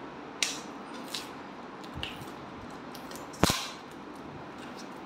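Plastic parcel wrapping being torn open and handled by hand: a few short crackles and snaps, the loudest a sharp crack about three and a half seconds in.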